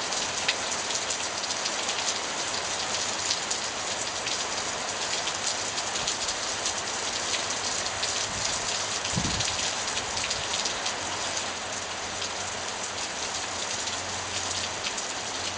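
Heavy thunderstorm rain falling steadily: a dense hiss of rain with many sharp drop ticks. A short low thump about nine seconds in.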